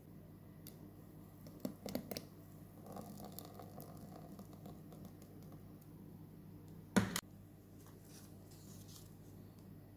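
Silicone spatula stirring thick cake batter in a bowl: soft scraping and squishing with a few light clicks, over a faint steady hum. About seven seconds in comes one sharp double knock, the loudest sound.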